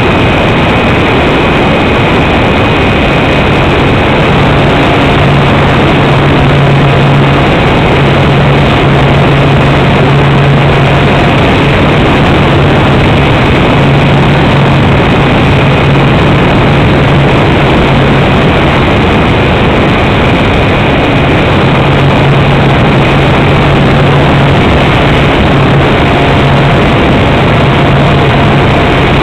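Motor and propeller of a radio-controlled powered glider running steadily in flight, heard loud from a camera mounted on its nose, as a constant low hum under a rushing noise of airflow.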